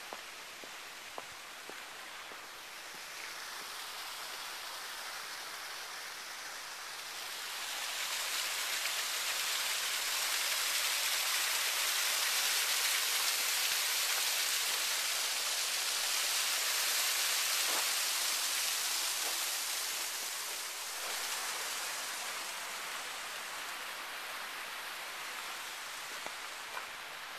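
Water falling and splashing in a landscaped garden waterfall, a steady rushing hiss. It grows louder about a third of the way in and eases off again after about two-thirds.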